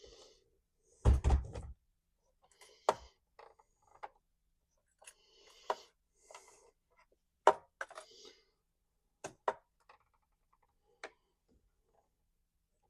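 A string of separate knocks and clicks with quiet gaps between, the loudest a heavy thump about a second in.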